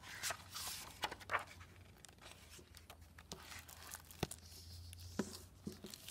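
Pages of a hardcover picture book turning and the book being closed, with paper rustling and crinkling, followed by a few soft taps and knocks as the book is handled.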